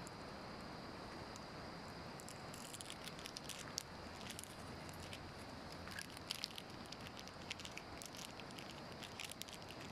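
A monkey handling and eating food: scattered small crackling clicks, starting about two and a half seconds in, over a faint steady outdoor hiss.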